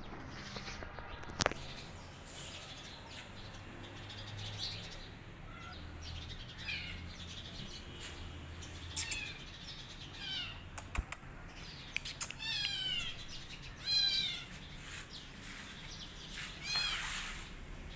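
A young kitten mewing: several short, high-pitched mews, each rising and falling, coming more often in the second half. A few sharp clicks are heard between them.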